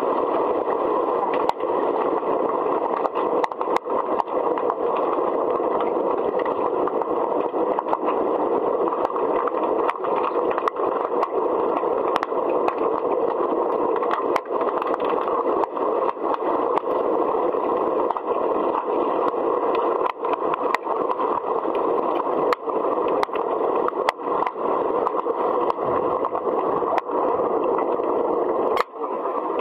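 Underwater hockey play: a steady muffled rush of noise with frequent sharp clicks and scrapes of sticks and puck.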